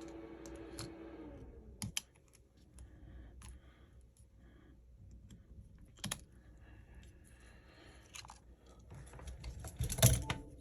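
Scattered light clicks and taps of small tools and phone parts being handled, with a few sharper taps about two, six and ten seconds in. A faint low hum fades out in the first second and a half.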